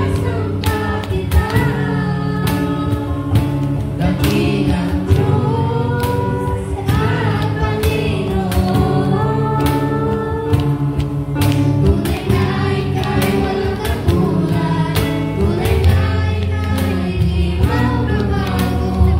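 A girl and a boy singing a gospel song into microphones over a PA, accompanied by a Casio electronic keyboard, with a steady percussive beat under the chords.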